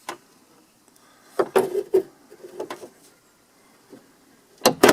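Sharp plastic-and-metal clicks from a truck door's handle linkage as the white retaining clip on the linkage rod is pushed back to release the rod: a quick cluster of clicks about a second and a half in, and two more near the end.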